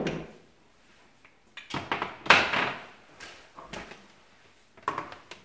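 Spice jars clattering and knocking as they are gathered and set down on a glass-ceramic cooktop: a cluster of knocks about two seconds in, then a few lighter taps.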